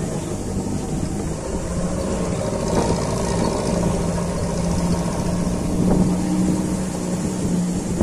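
Off-road vehicle's engine running steadily as it drives along a rough dirt track, with a couple of knocks and rattles from the bumps.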